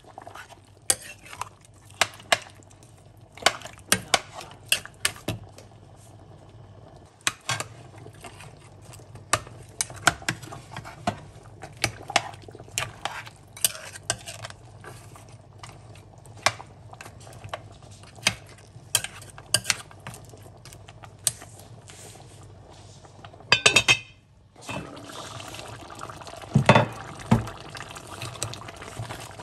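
Metal spoon stirring a thick stew in an enamelled pot, clinking and scraping against the pot in irregular knocks about once or twice a second. Near the end a steady hiss of the simmering stew sits under the stirring, with a few louder clanks.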